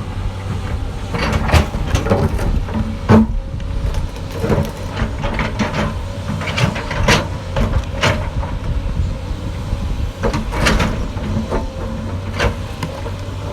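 Hydraulic excavator working: its diesel engine runs steadily under irregular metallic clanks and scrapes from the bucket and soil, about one a second.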